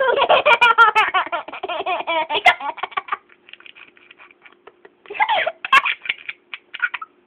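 A small child laughing hard: a quick run of high-pitched laugh bursts, about five a second, that fades after about three seconds. Two shorter bursts of laughter follow, about five seconds in and near the end.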